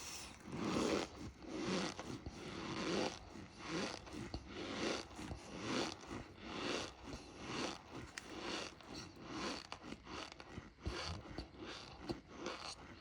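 A person chewing a mouthful of cornstarch close to the microphone, a crunching chew about once a second.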